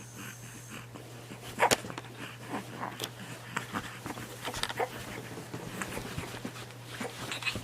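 A baby's quiet snuffles and small grunts, with scattered light knocks and rustles and one sharper knock near the start, over a steady low hum.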